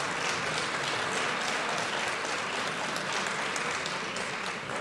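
Applause from members of parliament, many hands clapping together steadily, easing off slightly near the end.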